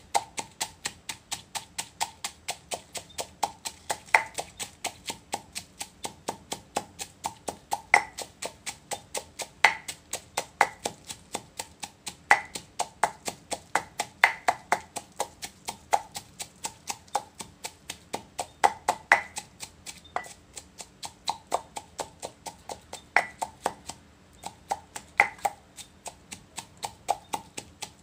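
A wooden pestle pounds shredded green papaya and chilies in a mortar for som tam, in steady knocks about three a second. A few strikes land louder, and there is a short break near the end.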